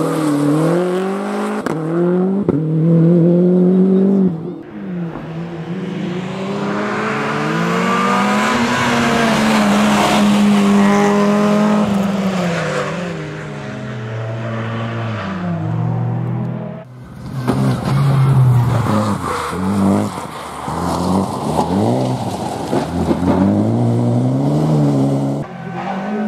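Rally cars racing past one after another, engines revving hard with the pitch climbing and dropping through gear changes. The sound cuts abruptly to a different car about four seconds in and again around seventeen seconds.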